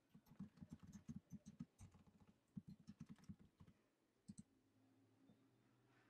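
Faint typing on a computer keyboard: a quick run of keystrokes lasting about three and a half seconds, then a pair of clicks about a second later.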